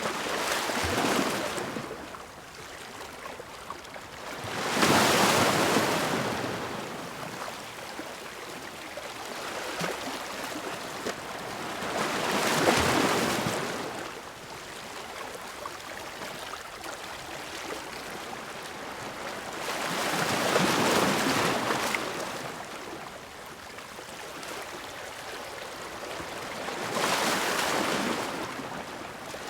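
Ocean waves crashing on a shore: five waves break several seconds apart, each a rush of hiss that swells and fades, with a steady wash of surf between them.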